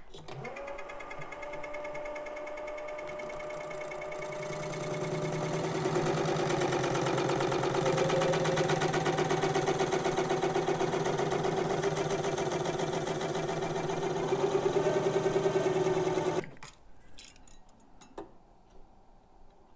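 Mini lathe running with a steady motor whine as it turns a metal ring in a three-jaw chuck, the cutter taking a parallel cut along the ring's outside edge. The sound grows louder about five seconds in, then cuts off as the lathe is switched off, followed by a few faint clicks.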